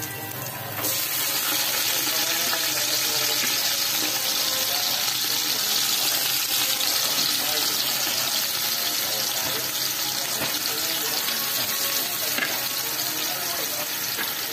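Ginger and chopped garlic sizzling in hot oil in an aluminium pot. The sizzle jumps louder about a second in as the garlic goes in, then holds steady.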